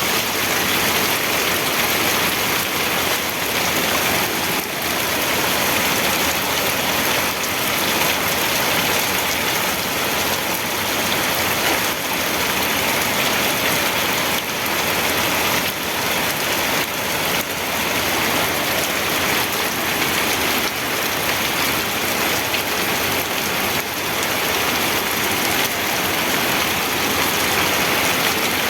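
Steady rain falling, an even hiss of drops hitting surfaces with no letup or change.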